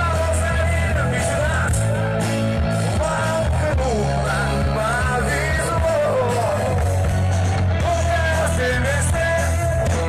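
Live band playing on an outdoor stage with a singer, amplified through the stage speakers, with a steady beat underneath.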